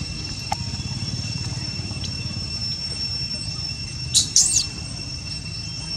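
Steady outdoor background of a low rumble and a thin, high-pitched whine held on two steady tones. About four seconds in come two brief, sharp high-pitched squeaks, one sliding downward.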